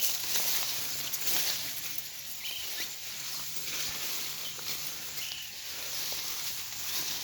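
Vegetation rustling and snapping as sedge seed heads are picked by hand, with about five short bird chirps over it.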